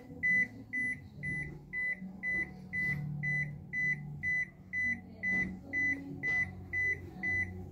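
Toshiba top-loading washing machine's control panel beeping over and over, a short high beep about two and a half times a second: the machine's error alarm, sounding with its cycle lights flashing.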